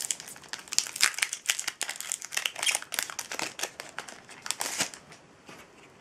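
Foil Yu-Gi-Oh booster pack wrapper crinkling as it is handled and torn open by hand, a dense crackling that stops about five seconds in.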